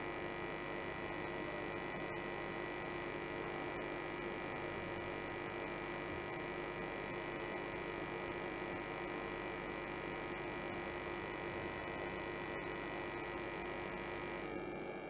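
Steady electrical hum with a few fixed tones over a low hiss, with a faint tick or two.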